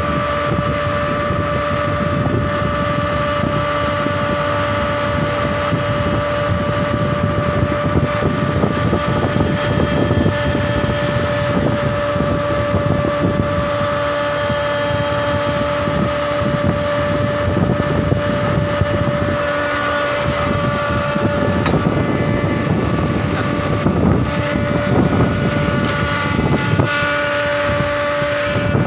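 Longline fishing boat's engine running steadily, a constant drone with a held tone over a broad wash of noise.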